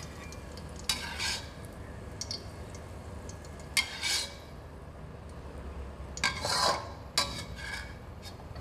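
Metal wok spatula scraping and clinking against a steel wok while scooping out fried garlic, a few short scrapes a couple of seconds apart.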